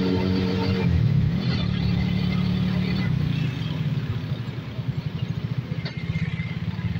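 A vehicle engine running close by with a fast, even chug. It eases off a little about halfway through, then picks up again.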